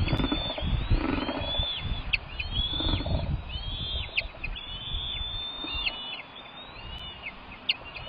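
Bald eagles calling: a string of thin, high, whistled calls, each arching up and falling away, repeated every half second or so. Wind rumbles on the microphone, heavier in the first half.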